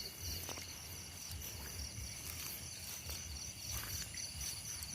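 Night insects trilling steadily: two continuous high, rapidly pulsing trills, with a few faint rustles or steps.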